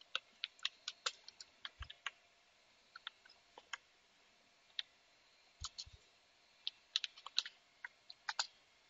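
Computer keyboard being typed on: keys clicking in short irregular runs and single taps, with pauses of up to a second between them.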